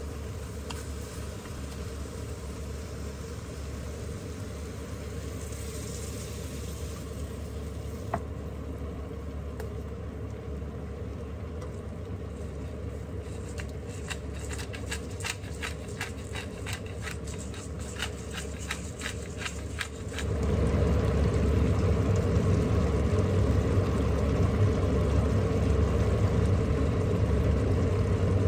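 Steady low mechanical hum of a kitchen fan over the cooking pot. Midway comes a run of quick, even grinding clicks, a pepper mill cracking pepper over the filling. About twenty seconds in, the hum jumps markedly louder and stays that way.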